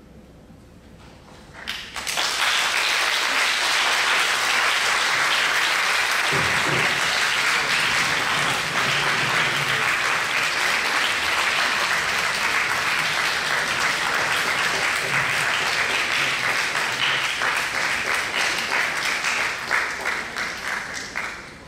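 Audience applauding. The applause starts about two seconds in, stays dense and steady, then thins into separate claps and fades near the end.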